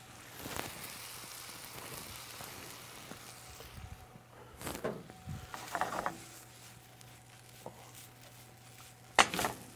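Brown rice sautéing in a skillet, a low steady sizzle, with a few short scrapes and clatters of the pan and one louder knock near the end as the pan is handled on the gas range grate.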